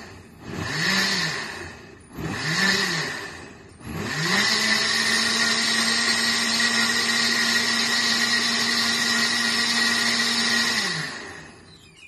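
KitchenAid K400 blender running its self-clean cycle on warm soapy water: the motor pulses twice, each pulse rising and falling in pitch. It then runs steadily for about seven seconds and winds down to a stop near the end.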